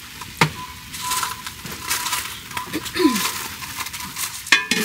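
Kitchen clatter of pots and utensils: a sharp clink about half a second in, scattered light knocks, and a ringing metal clink near the end.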